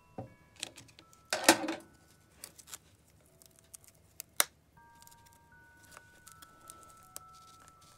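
A taped cardboard card protector being handled and pried open: a burst of rustling and crinkling about a second and a half in, then a few sharp clicks and taps, the loudest a little after four seconds. Soft background music with held notes plays underneath.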